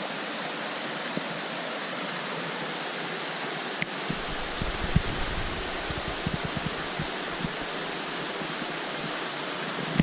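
Small forest waterfall pouring into a rocky pool, with the stream running out over rocks: a steady rush of falling and running water. Irregular low rumbles join in from about four seconds in.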